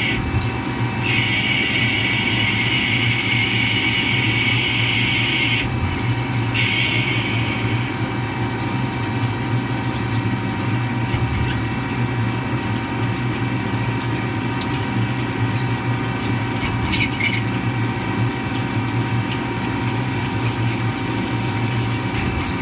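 CNC lathe deep-drilling titanium with a long twist drill under flood coolant: a steady machine hum with coolant splashing. A high hiss from the cut breaks off twice in the first eight seconds, then fades.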